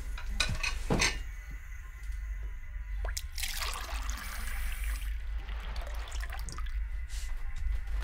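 A few sharp knocks in the first second, then about three seconds in a kitchen tap gushes water into the sink for about two seconds. A steady low hum runs underneath.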